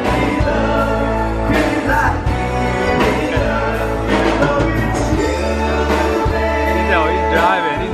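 A live band playing a song: a singer's voice with vibrato over a steady bass line and drums.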